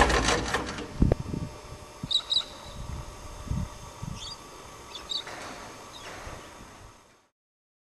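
Van's RV-9A light aircraft engine shutting down, its propeller spinning down to a stop within the first second or so. Then a few short bird chirps and a couple of low thumps over quiet open air.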